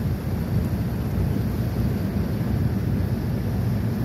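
A boat's engine running steadily at low speed, a constant low rumble, with wind on the microphone.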